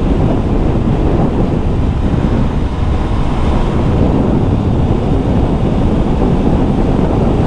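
Steady, loud wind rush buffeting the microphone of a scooter ridden near its top speed of about 90 km/h.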